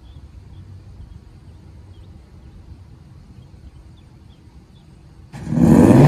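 Federal Signal Thunderbolt 1000T tornado siren starting up about five seconds in: a loud tone that rises steeply in pitch as the siren winds up into its steady alert signal. Before it there is only a low outdoor rumble with faint short chirps.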